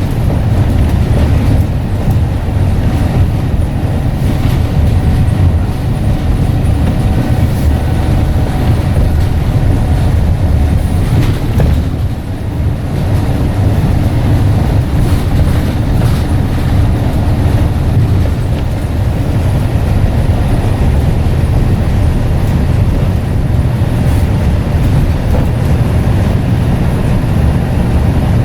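Scania N94UD double-decker bus's diesel engine and ZF automatic drivetrain running under way, a steady loud low rumble that dips briefly about twelve seconds in.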